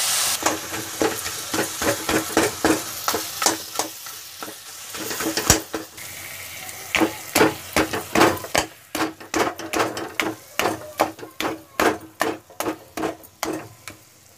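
Metal spatula scraping and knocking against a kadai while stirring and breaking up fried fish head in masala: a quick run of scrapes, about two or three a second, with a short lull about halfway, over a fainter sizzle.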